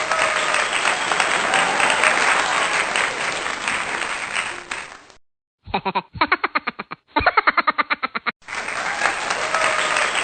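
Crowd applauding and cheering, cut off about five seconds in; after a brief gap comes a short, rapid run of evenly spaced pulses from a lower-quality clip, then the applause and cheering resume near the end.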